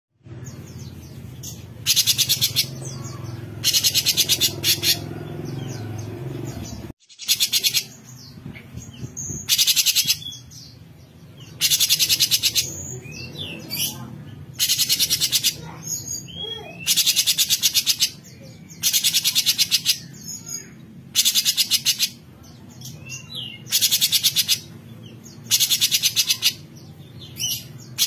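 Cucak cungkok, a leafbird, giving its harsh rasping 'besetan' calls: a dry, buzzing rattle under a second long, repeated about every two seconds, with softer chirps and whistles in between.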